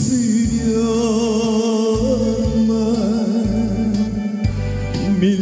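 A solo voice singing a Korean trot ballad over an instrumental backing track, holding long notes with a wavering vibrato, and a new phrase beginning about two and a half seconds in.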